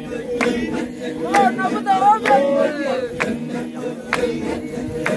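A crowd singing together without instruments: a low steady chant held underneath, higher voices gliding over it, and a sharp beat about once a second.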